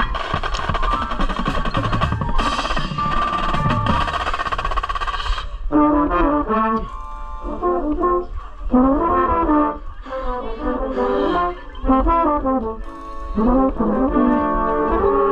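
Drum corps brass line playing with percussion: a loud, full passage for about the first five and a half seconds, then brass chords in separate swells with short breaks between them.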